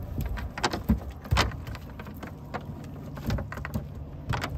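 Scattered clicks, rattles and a few sharp knocks as a cast net and its catch are picked through on a boat deck. A low steady hum joins about halfway through.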